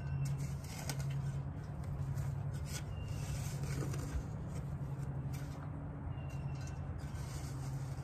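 Steady low hum of the outdoor air-conditioner condenser unit running, with a metal shovel scraping and chopping into soil a few times.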